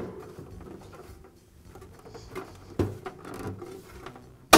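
Plastic light lens being pressed onto a bathroom vent-fan-heater's plastic grill: light rubbing and handling, a click about three seconds in, and a sharp snap at the very end as a lens tab catches in the grill.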